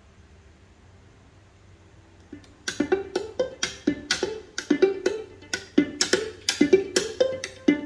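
Quiet room tone, then about two and a half seconds in a homemade pallet-wood Bluetooth speaker starts playing music: short, sharp, ringing percussive notes, about three a second.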